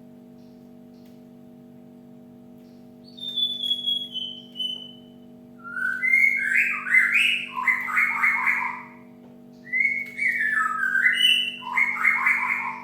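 Cinereous tit calling: a single falling whistle, then two bouts of quick, choppy stepped notes, over a steady low hum.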